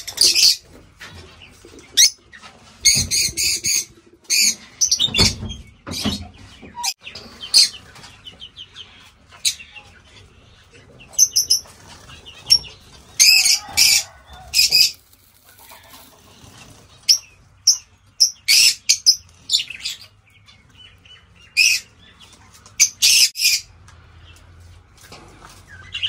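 Lovebirds in an aviary giving short, shrill chirps in quick clusters throughout, with a couple of low thumps about five seconds in.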